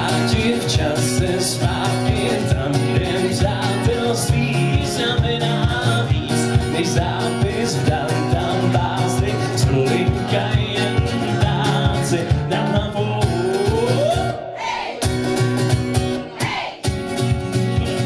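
Live acoustic guitar strummed in a steady rhythm while a man sings, with two brief breaks in the strumming near the end.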